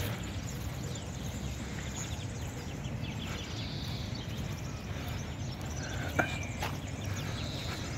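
Footfalls of a group of runners jogging together on grass, a rhythmic patter of many feet over steady low outdoor noise. A single short, sharp sound with a brief high tone stands out about six seconds in.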